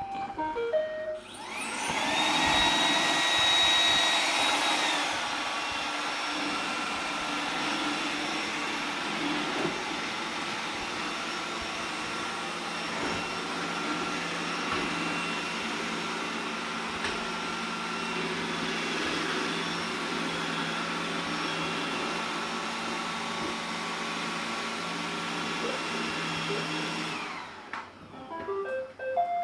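Robot vacuum cleaner starting and running: a few short beeps, then the motors spin up with a rising whine about a second in. It runs loudest for a few seconds, settles into a steady whirring hum, then shuts off near the end, followed by a few more short beeps.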